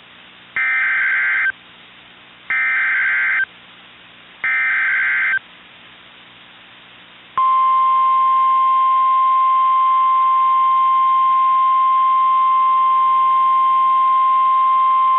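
NOAA Weather Radio emergency alert: three roughly one-second bursts of SAME digital header data, about two seconds apart, then the long steady Warning Alarm Tone starting about seven seconds in. Together they signal the broadcast of a tornado warning. Radio hiss and hum lie underneath.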